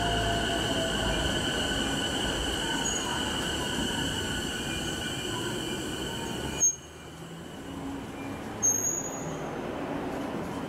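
E233-series electric train standing at a station platform, its electrical equipment giving a steady high whine over station rumble. About two-thirds through, the sound drops suddenly with a click, and a second click follows about two seconds later.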